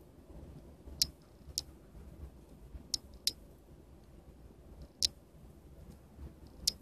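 Six sharp, light clicks at uneven intervals from a small plastic USB card reader being handled between the fingers.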